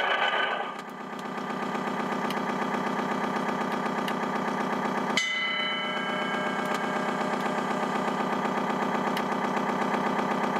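Sound module of an RC model tugboat playing a simulated marine diesel engine idling with an even, pulsing beat. About five seconds in, a ringing, bell-like tone sets in over the engine.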